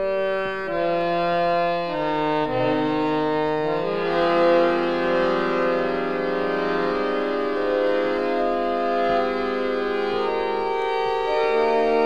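Instrumental music playing from a vinyl record: slow, held harmonium chords that change every second or two, with no singing. The sound fills out a little about a third of the way in.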